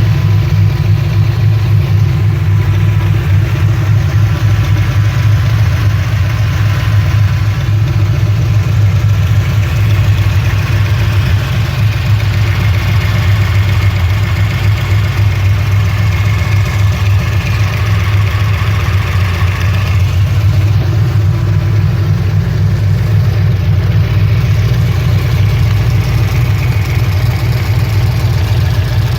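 Rebuilt Ford 5.0 V8 of a 1993 Fox-body Mustang, fitted with GT40 heads and an E303 cam, idling steadily with a valvetrain noise that the owner cannot pin down and suspects comes from the rockers or the lifters.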